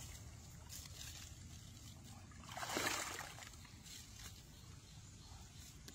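Shallow muddy water sloshing as someone wades, with one louder splash about three seconds in.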